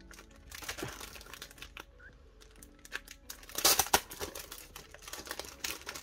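Clear plastic sleeve crinkling as it is handled, with a louder burst of crinkling a little past halfway.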